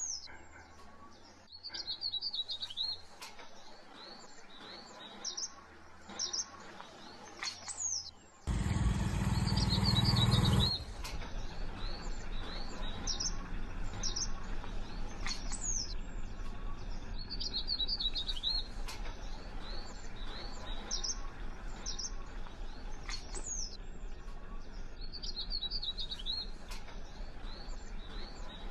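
Small birds chirping and twittering in short recurring phrases. About eight seconds in, a loud noise lasting about two seconds starts and stops abruptly, and after it a steady low rumble runs under the chirping.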